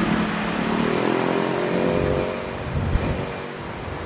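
A motor vehicle engine passing by, its pitch rising and then falling away over about two and a half seconds.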